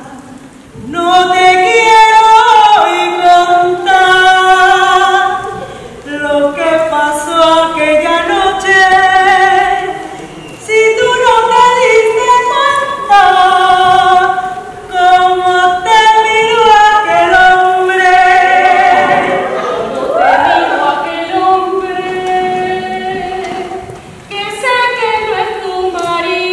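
A group of women's voices singing a cappella, in sung phrases of a few seconds with short breaks between them.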